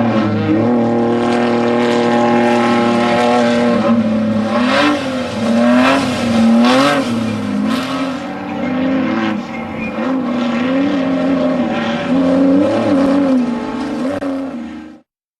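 Off-road race vehicle's engine running hard, its pitch rising and falling about once a second, with a few sharp hits around the middle. The sound cuts off suddenly near the end.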